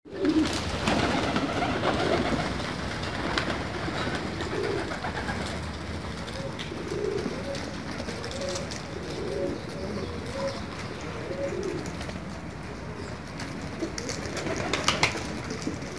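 Pigeons cooing, low rounded calls repeating every couple of seconds, with a few sharp clicks and taps, the strongest near the end.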